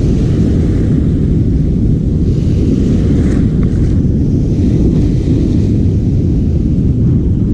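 Wind buffeting the microphone: a steady, loud, low rumble with no clear pitch.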